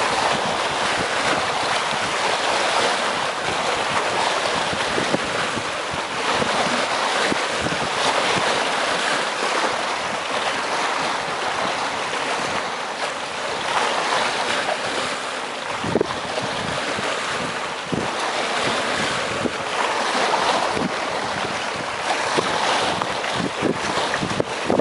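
Sea waves washing against breakwater rocks: a steady rushing that swells and eases every few seconds, with a few short, sharp splashes.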